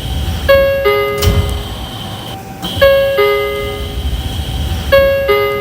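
High-pitched version of an N3000-series train's door chime: a two-note descending ding-dong, repeated three times about two seconds apart. After each chime a steady high tone holds until just before the next one, over a low rumble.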